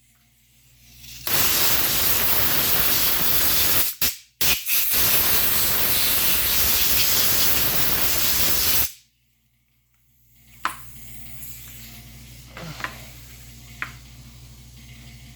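Compressed air hissing as it is blown through a shotgun to clear out dirt, one long blast of several seconds broken by two short pauses partway through, cutting off suddenly. A few faint clicks of the gun being handled follow.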